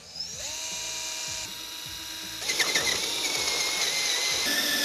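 Cordless drill running with a steady motor whine as it drills pilot holes through a bathtub wall panel. It spins up just after the start, and about two and a half seconds in it gets louder and its pitch shifts as the bit works through the panel.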